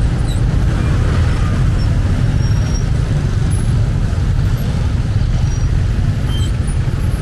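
Steady low rumble of road traffic and vehicle noise, with no single event standing out.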